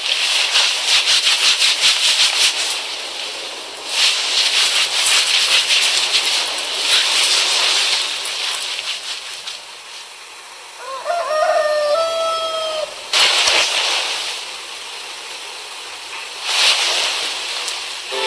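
Gusts of wind whooshing five times, each a few seconds long, with a rooster crowing once in the middle.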